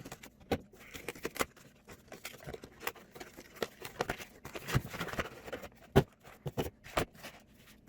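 Cardboard box and packaging being opened and handled by hand: irregular clicks, taps and rustling, with one sharp click about six seconds in.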